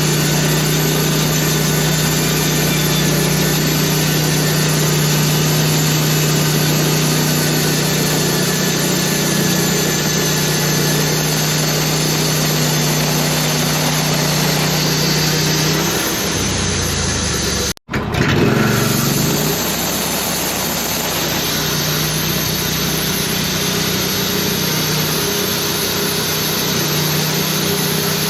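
Sawmill's engine running steadily at a held speed; about sixteen seconds in its pitch shifts and the sound cuts out for an instant, then the engine runs on steadily.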